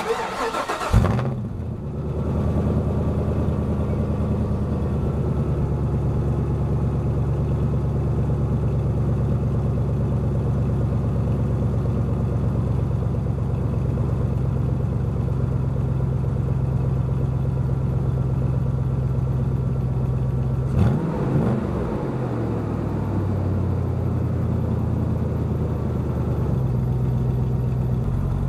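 2004 Hummer H2's 6.0-litre V8 cold-starting through Flowtech Red Hots glasspack mufflers: a short crank, it catches about a second in and settles into a steady fast idle. About two-thirds of the way through, a brief blip of the throttle, after which the idle settles lower.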